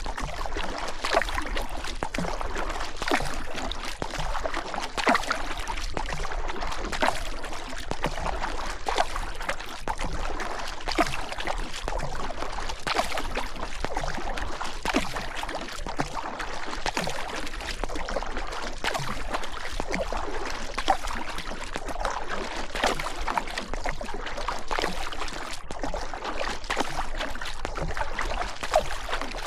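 Paddle strokes splashing in the water at a steady pace of about one every two seconds, over the continuous rush and trickle of river water.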